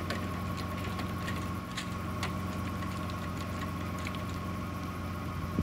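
An engine idling steadily, with a steady whine above it and a few faint, scattered clicks.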